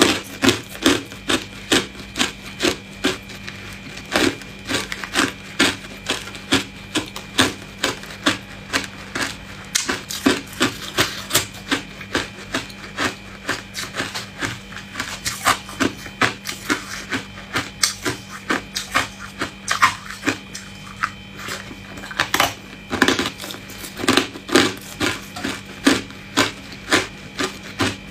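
Hard ice crunched and chewed: a quick, irregular run of sharp crunches, a few a second.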